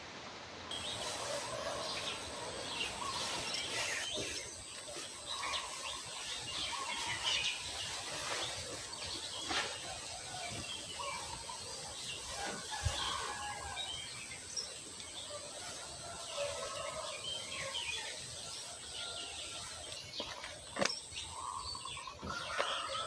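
Birds chirping, many short scattered calls, over a thin steady high-pitched whine that starts just under a second in, with a few sharp clicks.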